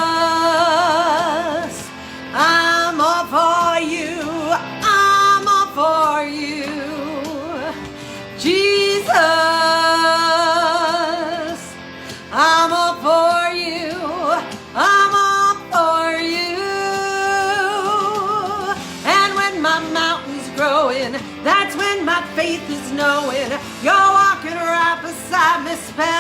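A Christian gospel song with a woman singing: long held notes with wide vibrato and quick melodic runs, but no clear words.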